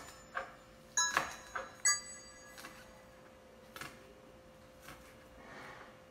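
Kitchen knife chopping green onions on a wooden cutting board: sharp knocks, several in quick succession in the first two seconds, then a few sparser ones. A few bell-like music notes sound about one and two seconds in.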